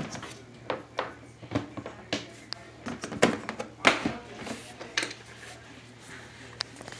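Irregular clicks, knocks and rattles of hands working on the plastic housing of a portable washer and spin dryer while it is being taken apart.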